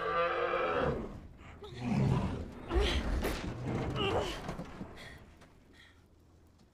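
A giant animal's deep, wavering groan tails off in the first second. Then comes a heavy low thud with creaking and a person's straining effort sounds as a massive weight is pushed. The sound dies away toward the end.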